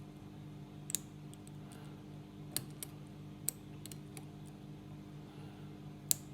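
Lock pick and tension wrench working the pins of a Master Lock 410 lockout padlock: about seven sharp, irregularly spaced small metallic clicks, the loudest near the end, over a steady low hum.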